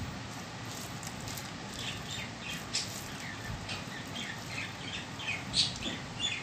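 Small birds chirping in short, repeated calls over a steady background hiss, with a sharper click a little after halfway.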